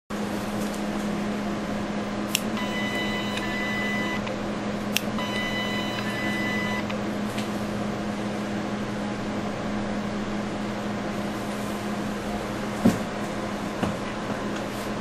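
RF microneedle skin-treatment machine running with a steady hum. It fires twice: each shot starts with a sharp click and is followed by a steady beep of several tones, about two seconds long. A louder click comes near the end.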